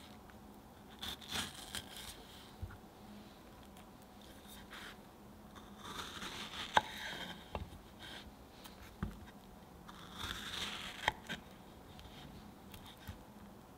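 Knife cutting fresh strawberries on a wooden cutting board: soft slicing and scraping through the fruit, with a few sharp clicks as the blade meets the board, the loudest about seven seconds in.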